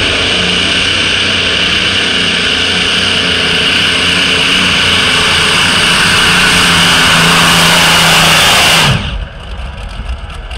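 Multi-engine supercharged modified pulling tractor running flat out under load as it drags the weight-transfer sled, a steady loud engine sound that builds slightly in level. It cuts off suddenly about nine seconds in as the engines are shut down at the end of the pull.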